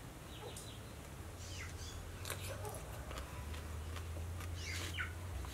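Faint bird chirps, a few short calls scattered through, over a steady low hum, with occasional light clicks.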